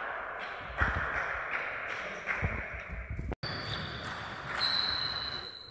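A table tennis rally: the ball clicking on the table and the bats in a steady rhythm, about two to three hits a second, over a steady hiss. After a brief dropout a short high ringing tone sounds near the end.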